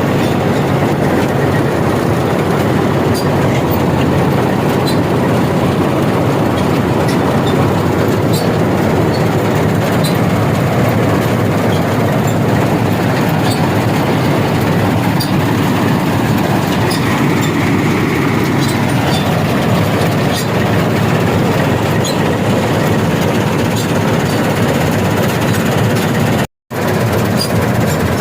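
Dasmesh 3100 combine harvester running steadily while harvesting rice: a loud, continuous mechanical rattle. It cuts out for about half a second near the end, then resumes.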